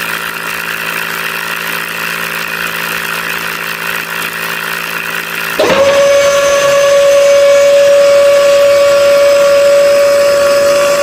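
A small motor running steadily. About halfway through, a louder, higher steady whine cuts in with a quick rise in pitch before it holds level.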